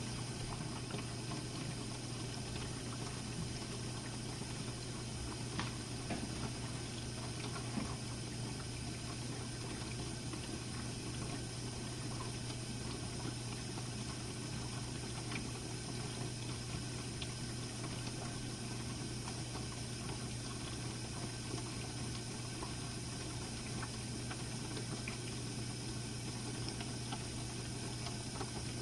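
Jenn-Air dishwasher running its Quick Wash cycle: a steady motor hum with water rushing inside the tub, and a few faint ticks.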